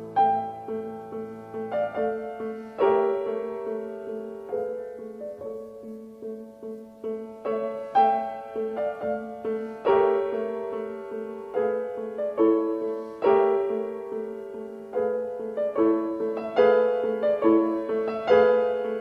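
Background music: a piano playing a slow melody of single struck notes and chords, each note decaying before the next.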